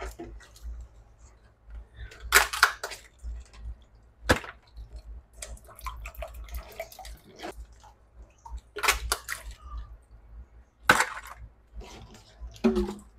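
Live crabs being handled in a stainless steel sink of water: several sharp knocks and cracks of hard shell against the sink, with water sloshing and small clatters between them.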